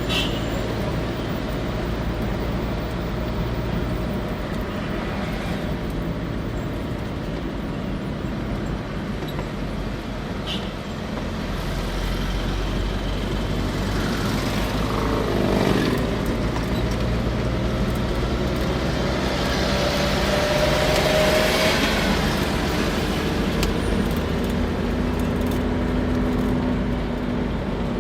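City street traffic: cars, buses and trucks running in a steady rumble. About halfway through, one vehicle passes close by with its engine pitch falling, and a few seconds later another engine revs up as it swells louder.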